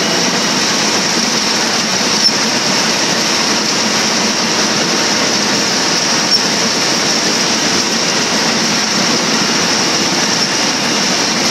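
Caterpillar D8H crawler bulldozer's turbocharged six-cylinder diesel running steadily under work, heard loud from the operator's seat, with the machine's mechanical clatter mixed in.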